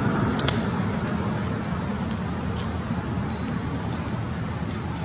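A bird calling over and over, short high notes that slide upward about once a second, over a steady low rumble.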